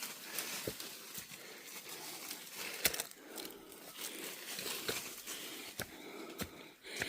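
Footsteps crunching on a mountain trail, an irregular rustle with scattered sharp clicks.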